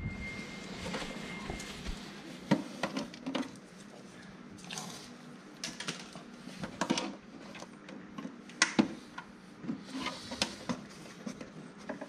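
Scattered light clicks and taps, irregular and uneven in loudness: a pug's claws on a tile floor as it moves around a plastic treat dispenser.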